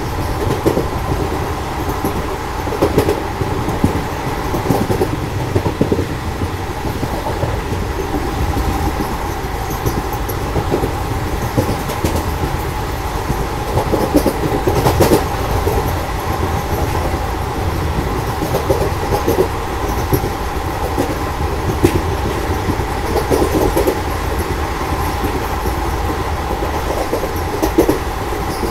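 Passenger train running at speed, heard from outside the coach window or door: a steady rumble of wheels on rail with a constant high hum and irregular clicks and knocks as the wheels pass over the rails.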